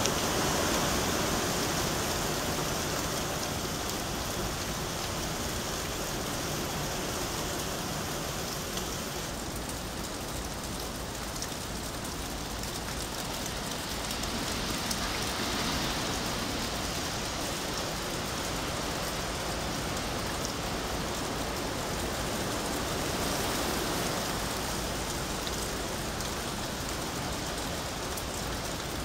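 Steady rain from Hurricane Michael falling on wet grass, pavement and parked cars, swelling and easing a few times.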